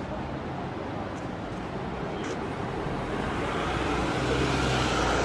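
A vehicle engine running steadily, a low rumble under a wash of street and wind noise, growing slowly louder.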